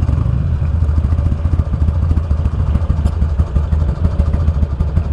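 2009 Buell Lightning Long XB12SS's air-cooled V-twin idling in slow traffic, a steady low pulsing beat.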